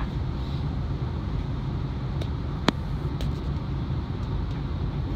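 Steady low hum inside a Flexity tram standing still, with road traffic passing outside. One sharp click sounds about two and a half seconds in.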